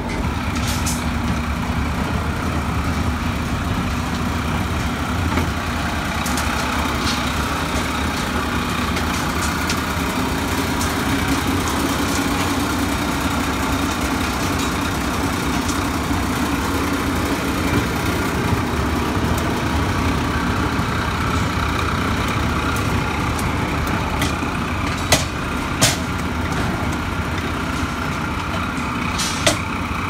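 Steady drone of construction-site machinery running, with a handful of sharp metallic clanks from steel rebar being handled at a rebar bending machine.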